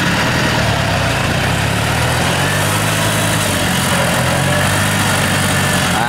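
The engine of a red farm machine running steadily at an even speed, with a constant hum.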